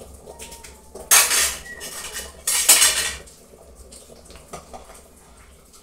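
Metal ladle scraping and clinking against a stainless steel pot while stirring a thick soup: two loud scrapes about a second and a half apart, with lighter clinks around them.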